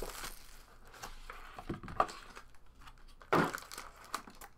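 Trading-card pack wrapper crinkling and cards being handled, a soft scattered rustling with a louder rustle a little over three seconds in.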